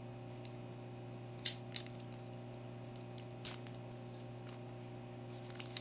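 Plastic wrapping on a new phone crinkling and rustling as it is handled. A few short, sharp crackles come at uneven intervals over a steady low hum.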